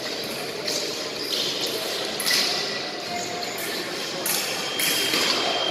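Men's foil bout: fencers' footwork and light clinks of the blades in a large echoing hall. Near the end, a steady high electronic beep starts: the scoring apparatus signalling a touch.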